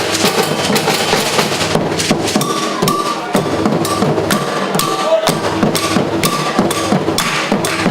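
Percussion ensemble playing live: drums and sharp, wood-block-like strikes in a dense, steady rhythm.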